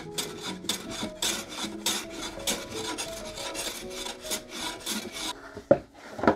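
Hand plane run on its side along a shooting board, shaving the edge of a plywood panel square: quick, even scraping strokes, about three a second. The strokes stop near the end, followed by two sharp knocks.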